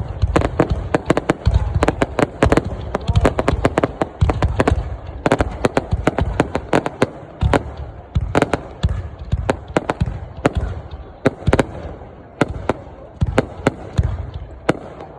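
Fireworks going off: a rapid, irregular string of sharp bangs and crackles over deep booms, continuing without a break.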